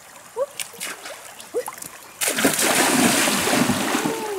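Water splashing as a person wades fast through a shallow stream. It starts suddenly a little over two seconds in and stays loud, after a few short rising-and-falling calls.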